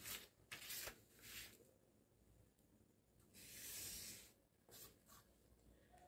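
Faint scratchy rustles of a clear plastic pattern ruler being shifted over kraft pattern paper and a marker drawing along it: a few short strokes, one longer stroke about halfway through, and two brief ones near the end.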